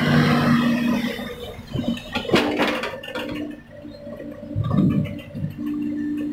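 Excavator engine running, with the steel bucket digging and scraping into loose rocky soil: a clatter of stones about two and a half seconds in and a low rumble of shifting earth near five seconds.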